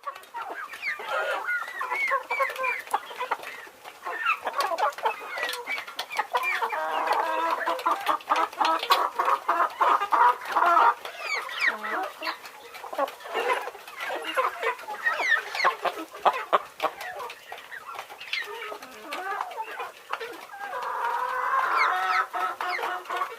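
Chickens clucking without a break, many short calls overlapping, crowding into a denser stretch of clucking in the middle and again near the end.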